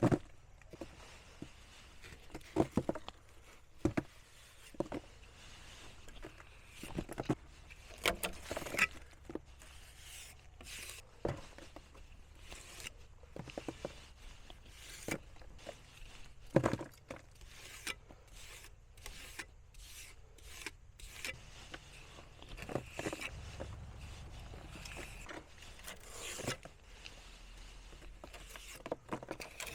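Trowel scraping and tapping as wet chinking mix is pressed into the gaps between cabin logs, in irregular short strokes and knocks.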